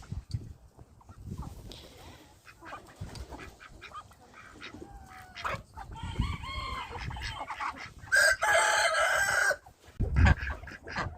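Chickens clucking, with a rooster crowing once, loudest, about eight seconds in.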